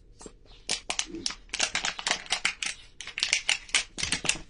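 Scissors cutting through a thin plastic PET bottle: a quick, irregular run of sharp snips and crackles as the blades chew through the plastic.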